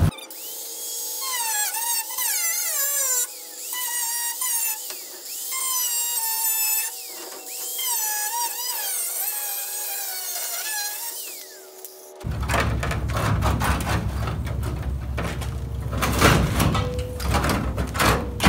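Handheld angle grinder cutting rusty sheet steel on the nose of a 1958 VW bus, its high whine rising and falling in pitch as the cut loads it. About twelve seconds in this gives way to loud scraping and clattering of metal as the cut panel is worked loose.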